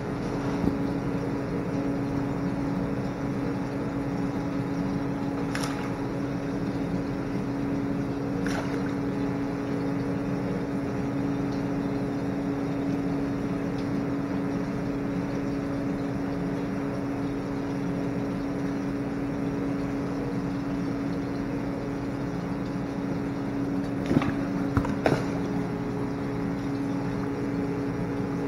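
Steady electric hum of an indoor saltwater pond's water pump, with a few short, sharp clicks and knocks scattered through, bunched about a second apart near the end.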